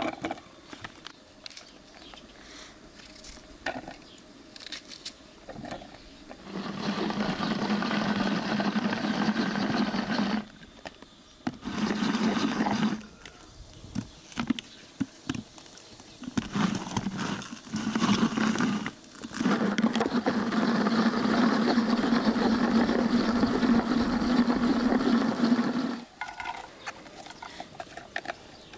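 Hand-cranked onion chopper turned in several runs, whirring steadily as its blades chop onion inside the plastic bowl. The runs get longer, the last lasting about six seconds. Before them come light clicks of a knife cutting onion pieces into the bowl.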